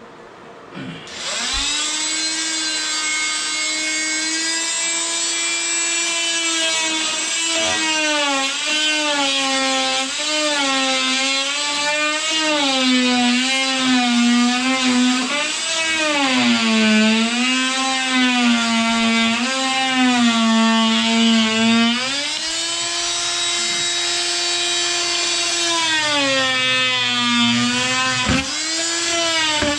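An electric power tool cutting wood with a steady high hum. Its pitch sags each time it bites into the board under load and rises again when it runs free, and it stops briefly near the end.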